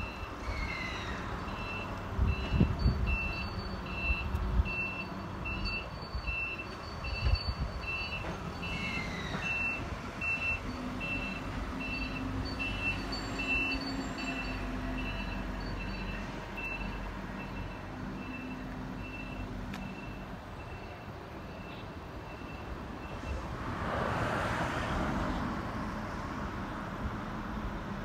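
A forklift's reversing alarm beeps steadily at one pitch, a little more than once a second, until a few seconds before the end, over a low rumble. A short squealing whine comes from the stationary 5500-series train at about half a second and again at about nine seconds. A rushing noise rises near the end.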